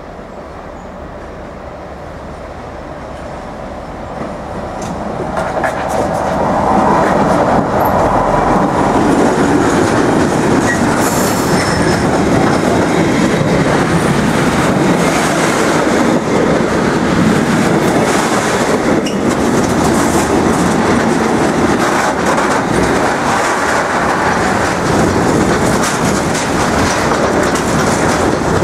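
Freight train hauled by an SNCF Fret BB 75000 diesel locomotive approaching and passing close by. The rumble builds over the first six or seven seconds, then holds as a steady loud rolling of freight wagons, with wheels clattering over rail joints and occasional high squeals.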